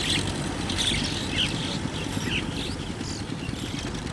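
TAFE 5900 tractor's diesel engine running steadily as it pulls a rotary tiller through a flooded field, with birds chirping several times over the engine.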